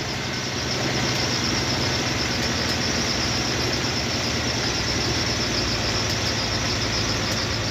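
Motor vehicle engine running steadily with a low hum and road noise.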